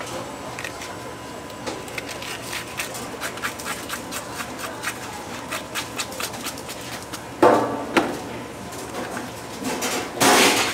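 Light clicks and knocks of kitchen work, about three a second, over a steady hum, with two louder rasping noises, one about seven seconds in and one near the end.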